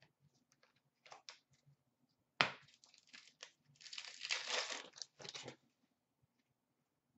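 Hockey card pack being torn open: a sharp rip about two and a half seconds in, then about two seconds of the wrapper crinkling. Before that come a few light taps of cards being handled.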